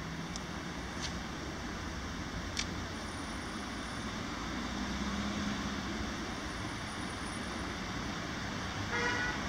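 Steady hum of road traffic with a brief car horn toot near the end.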